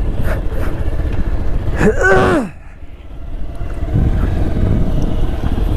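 Bajaj Pulsar 220F single-cylinder motorcycle engine running on a rough dirt trail. About two seconds in the rider gives a short exclamation that falls in pitch. The sound then drops away for over a second before the engine picks up again.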